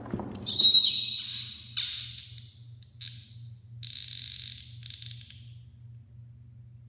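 A thump, then a live rabbit screaming in distress: about five shrill, harsh cries over some five seconds, the loudest about a second in, fading out after.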